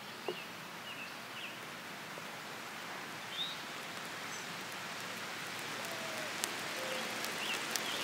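Rain starting to fall, a steady hiss of drops on foliage and ground that slowly grows louder, with a few sharp drop taps near the end. A few short bird chirps sound in the first half.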